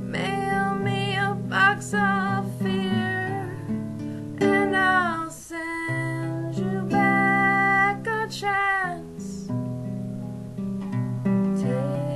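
A woman singing in long notes with a wavering vibrato over an acoustic classical guitar; her voice stops about nine seconds in, leaving the guitar playing alone.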